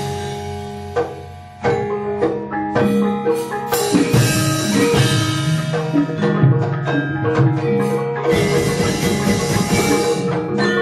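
Javanese gamelan playing: struck metallophones ring in sustained tones over drum strokes. The music thins out and drops in the first second or so, then comes back in loudly with a sharp strike, and grows denser and noisier near the end.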